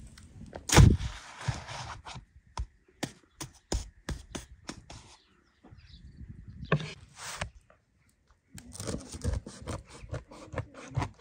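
A run of sharp knocks and clicks mixed with scraping, the loudest a thud about a second in, broken by two short dead gaps.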